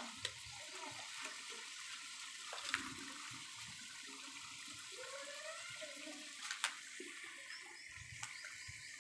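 Chicken curry simmering in an aluminium pot over a wood fire, a faint steady hiss, with two sharp clicks partway through.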